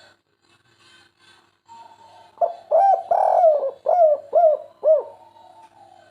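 Spotted dove (derkuku) cooing: one phrase of about six coos, each rising and falling in pitch, with the third coo the longest and loudest.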